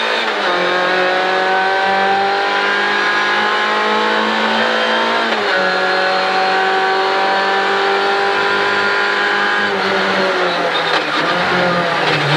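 Rally car engine heard from inside the cockpit, running flat out on a straight and holding a steady high note. It shifts up about half a second in and again about five and a half seconds in. Near ten seconds the note drops as the driver lifts, and the last second or so is uneven, with short knocks.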